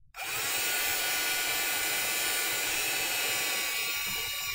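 Small handheld hair dryer switched back on just after the start: its motor whine rises quickly in pitch, then it runs steadily, blowing air over wet painted paper.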